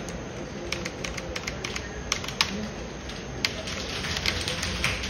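Computer keyboard keys being tapped in irregular clicks, over a steady background hum.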